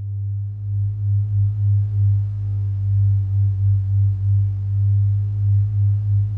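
Low electronic synthesised drone, a steady hum near 100 Hz with faint higher overtones. Its loudness wavers in a slow pulse, a few swells a second.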